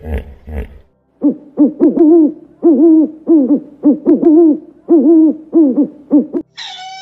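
An owl hooting: about a dozen short hoots in groups of two or three, each rising and then falling in pitch. Before them, in the first second, comes a low grunting, and near the end a steady high horn-like tone starts.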